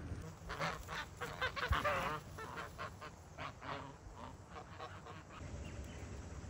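Farmyard fowl calling in a rapid run of short calls, loudest and densest in the first two seconds, then sparser and fading out after about five seconds.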